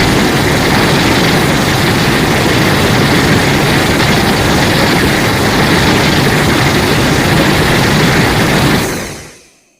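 Loud, steady rumbling noise from a monster-film sound effect, with no clear pitch, fading away over the last second.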